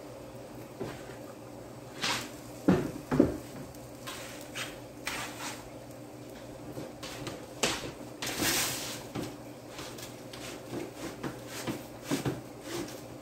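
Kitchen handling sounds: scattered knocks and clicks, like cupboard doors and things being set down, with two sharp knocks a few seconds in and a brief hiss just past the middle. A faint steady hum runs underneath.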